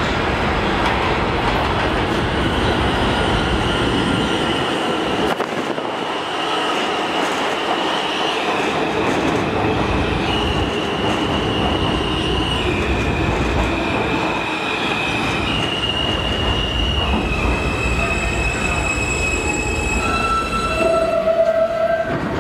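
R160B subway train entering the station and braking to a stop, wheels rumbling on the rails under a high electric whine that steps between a few fixed pitches as the train slows. A short, lower steady tone sounds near the end as the train stands.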